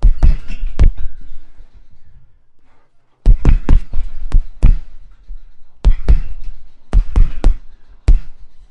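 Punches landing on a punching bag: sharp, heavy thuds in quick flurries of three to seven hits, separated by short pauses, with a single hit near the end.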